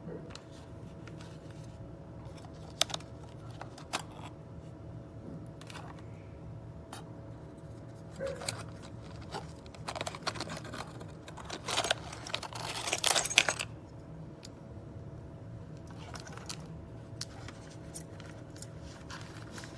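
Small hard parts clicking and jingling as they are handled: a couple of single clicks, then a busier stretch of rattling near the middle, over a steady low hum.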